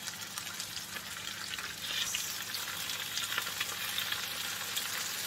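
Marinated mutton pieces sizzling and crackling in hot ghee over a high flame as they are laid into the pan; the sizzle grows louder about two seconds in.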